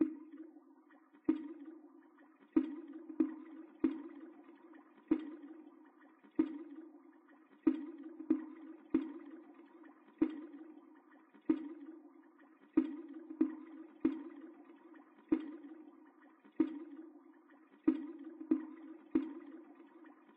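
A single synthesized instrument part from a reggae riddim looping in FL Studio: short, quickly decaying notes in a sparse repeating pattern, about one every 1.3 seconds with occasional quicker groups of three.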